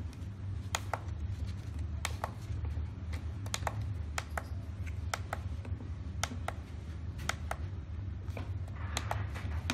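Push-buttons on a smart car-battery charger's front panel clicking as they are pressed again and again, most presses giving a quick pair of clicks, while the charge-current setting is stepped. A steady low hum runs underneath.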